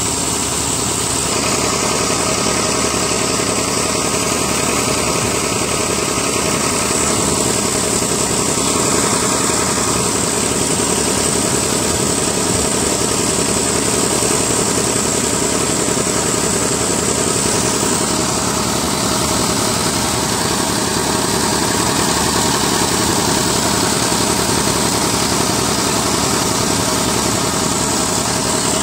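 Fiat 480 tractor's diesel engine running steadily under load, driving a tube-well water pump through its PTO shaft, line shaft and belt pulleys.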